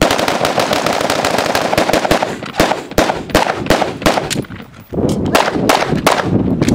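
Two shooters firing rapid, overlapping semi-automatic shots, first from AR-15 rifles and then from pistols after the transition. The fire is dense at first, then spaced out, with a brief lull just before the five-second mark.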